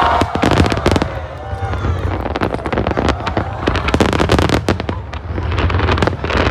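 Fireworks bursting overhead in quick succession: a dense run of sharp bangs and crackles, with voices among the spectators.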